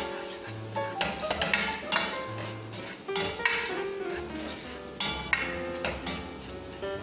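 Background music with held notes and a bass line, over a spoon clinking and scraping in a metal pot as chopped onion is stirred with turmeric.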